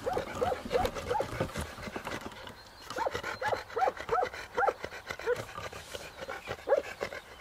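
A dog giving quick runs of short, high yelping barks, about three a second. One run comes at the start and a longer one about three seconds in, followed by a few single yelps.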